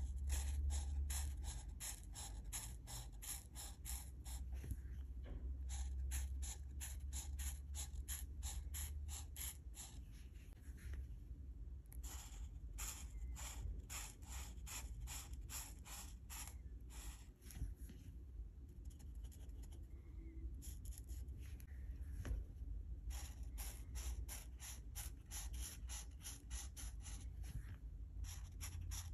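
Alcohol marker tip stroking back and forth on colouring-book paper: quick scratchy strokes, about two to three a second, in runs broken by a few short pauses, over a low steady hum.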